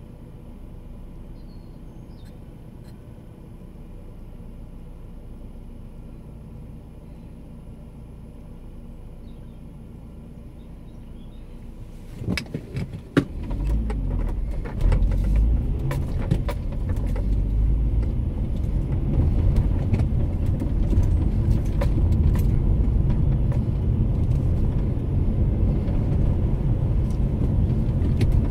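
Car engine idling quietly while the car is at rest, heard from inside the cabin. About twelve seconds in come a few clicks and knocks, then the car pulls away and a much louder low rumble of engine and road noise runs to the end.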